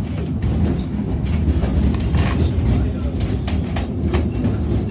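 Narrow-gauge railway carriage running along the track, heard from inside: a steady low rumble with scattered clicks of the wheels over the rails.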